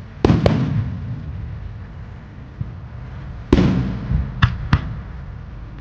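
Aerial firework shells bursting: two bangs close together just after the start, a louder bang about three and a half seconds in, then two sharper cracks a second later, each trailing off in a low rumble.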